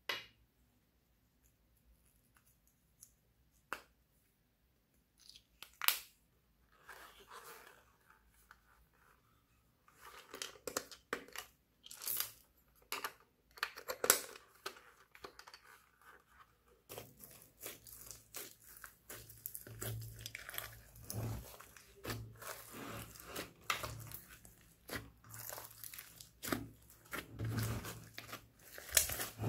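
Hands squishing and kneading slime with clay and glitter mixed in, a dense run of wet crackles and pops over the second half. Before that, scattered light clicks and taps of plastic toys and containers being handled.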